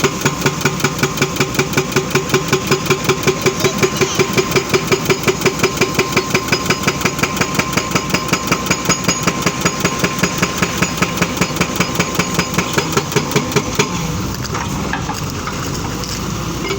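Excavator running at a work site, with a regular mechanical beat about four times a second over its engine and a steady whine; the beat and whine stop about 14 seconds in while the engine keeps running.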